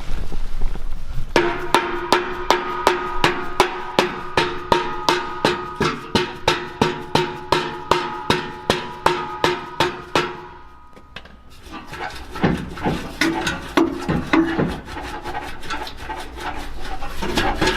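Background music with a steady drum beat of about three to four hits a second under held tones. It drops away briefly about two-thirds of the way through, then comes back busier.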